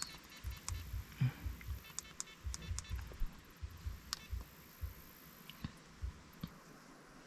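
Pickup truck rolling slowly over a rough dirt road with the window down: irregular low bumps and thuds with light clicks and rattles in the cab, easing off near the end.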